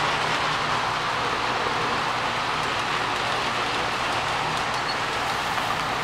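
Model freight train running steadily on the layout's track, a continuous rolling hiss and rumble from the wheels on the rails and the locomotive's motor.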